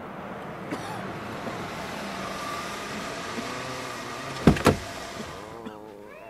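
Audio-drama sound effect of a jeep driving: steady engine and road noise, with two sharp bangs close together about four and a half seconds in.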